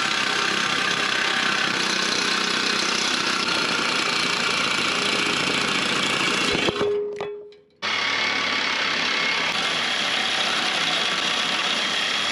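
Power cutting tool slicing through the truck's bent steel C-channel bumper supports in a long, steady cut. It stops about seven seconds in, dies away over roughly a second, then starts again abruptly and keeps cutting.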